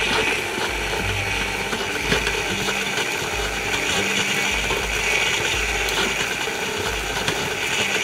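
Stand mixer running: a steady motor whir and gear clatter as the flat beater turns through flour, butter and sugar, starting to combine a babà dough.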